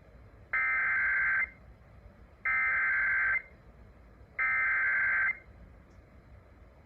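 Emergency Alert System SAME header: three bursts of shrill digital data tones, each just under a second long with about a second's gap between them. It opens an EAS activation, here for a severe thunderstorm warning.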